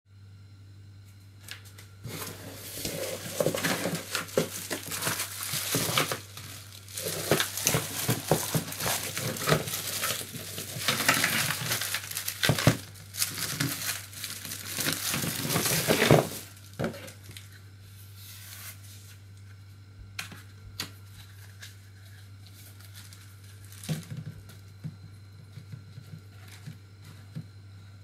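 Cardboard parcel being opened and the clear plastic bag around a bicycle fender set crinkling and tearing as it is handled, in dense loud bursts that stop about 16 seconds in. After that only a few light clicks of the plastic fender parts being handled, over a low steady hum.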